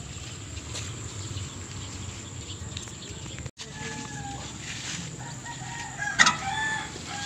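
A rooster crowing, pitched calls in the second half, with a short sharp knock about six seconds in. Before that, steady outdoor background noise.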